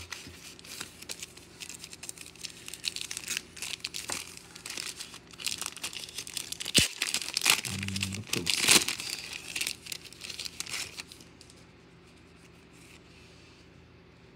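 Trading card pack wrapper being torn open and crinkled in the hands: a long run of sharp crackles, loudest about eight or nine seconds in, that stops about eleven seconds in.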